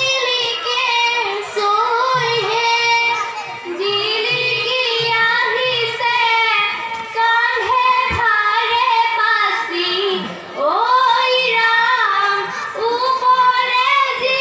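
A group of girls singing a biya naam, an Assamese traditional wedding song, together in one melodic line, amplified through stage microphones.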